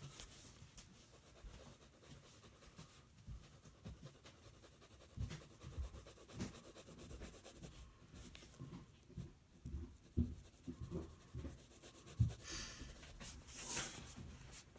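Faint scratching of a pen on paper while sketching, with scattered soft low knocks, and a louder stretch of scratching near the end.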